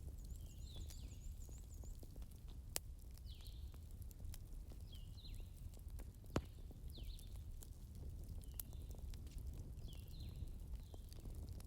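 Wood fire crackling, with scattered small snaps and two sharp pops about three and six seconds in. Over it, short high chirps repeat every second or two, with a fast high trill near the start.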